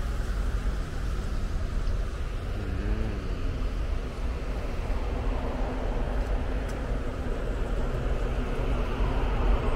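Steady road traffic on a wet city street: car and truck engines and tyres making a continuous low rumble. A brief wavering tone sounds about three seconds in.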